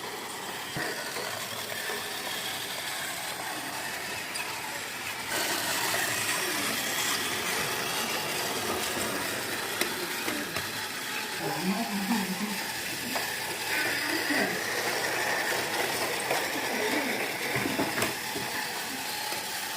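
Battery-powered Plarail toy train's small motor and plastic gearbox whirring steadily as it runs along the track, growing louder about five seconds in.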